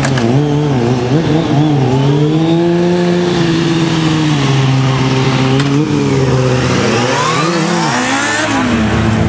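Sport motorcycle engine revving as it is ridden off, its pitch rising and falling as the throttle is worked, with a steep climb in revs about eight seconds in.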